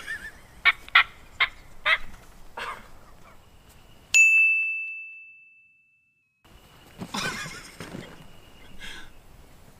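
Wild turkey calls: a quick run of short, sharp yelps, then a single bell-like ding that rings out and fades over about a second and a half, then a longer burst of turkey calling.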